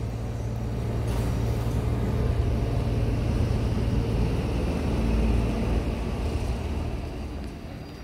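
A motor vehicle engine running with a steady low hum, louder in the middle and fading near the end.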